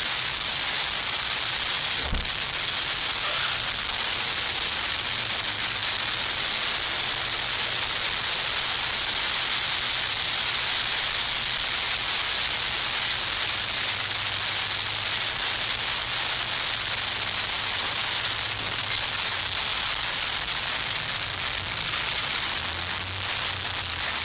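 Steady hiss of small camp stove fires burning under pots of water as they heat, with a single knock about two seconds in.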